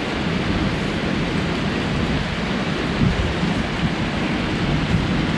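Heavy rain falling steadily in a thunderstorm, an even hiss with a low rumble underneath.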